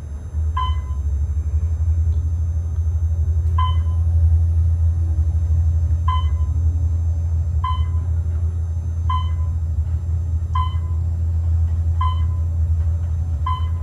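Modernized Otis traction elevator car travelling upward, heard from inside the cab: a steady low rumble from the ride, which swells as the car starts off about half a second in. A short electronic chime sounds eight times, roughly every second and a half after the first two, as the car passes floors.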